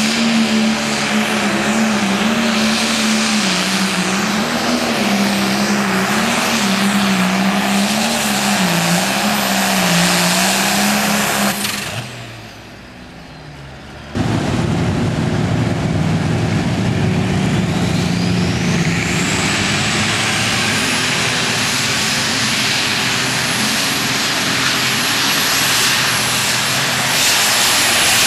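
Super stock diesel pulling tractor running at full power as it drags the sled, its engine note wavering up and down. The sound drops briefly about twelve seconds in and comes back abruptly. After that a pulling tractor's engine runs with a high turbocharger whine that rises steeply and then holds.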